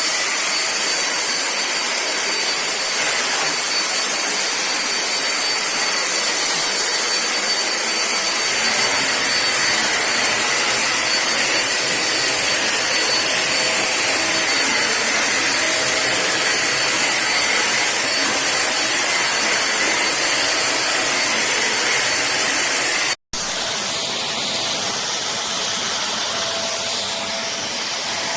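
Khind bagless vacuum cleaner running steadily, a loud rushing motor noise with a high whine over it. It breaks off for an instant about 23 seconds in, then carries on a little quieter.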